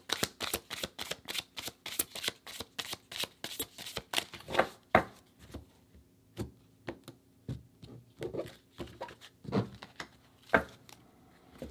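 A deck of tarot cards being shuffled by hand: a fast run of crisp card flicks for the first few seconds, then slower, scattered flicks with a few louder snaps.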